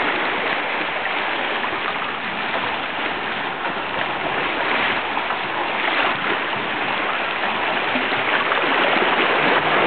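Sea water lapping and washing against the rocks at the edge of a small cove, a steady wash of water.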